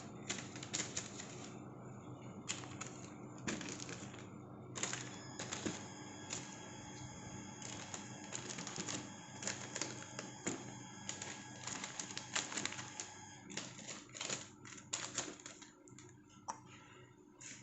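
Paper and clear plastic food packaging being handled and folded by hand, making a run of irregular crinkling clicks over a faint steady hum.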